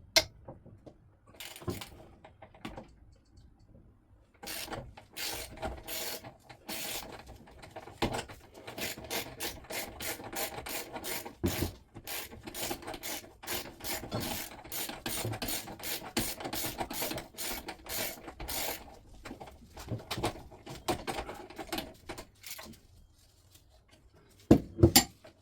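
Socket ratchet clicking in quick runs of strokes as engine mount bolts are undone on a Yamaha DT125R frame, with pauses between runs and two loud knocks near the end.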